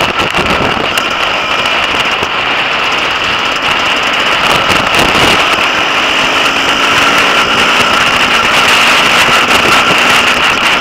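Off-road motorcycle engine running steadily while riding, heard from the rider's seat with wind rushing over the microphone; a little louder in the second half.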